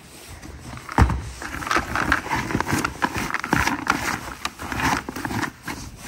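Dry horse feed, pellets and chopped chaff, rustling and crackling as a hand stirs it in a flexible plastic feed tub, with a sharp thump about a second in.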